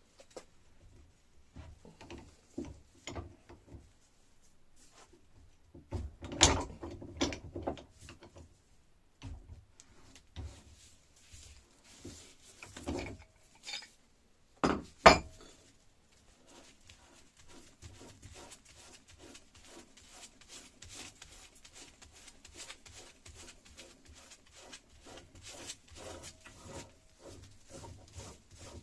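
Metal parts of an old hydraulic jack being handled while it is taken apart: scattered clinks and knocks, a sharp knock about halfway through, then a long run of fast small clicks and scraping.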